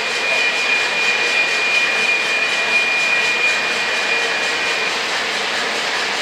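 Lionel O gauge model trains running on three-rail track: a steady rolling noise from the wheels and motors, with a steady high tone over it that stops about five seconds in.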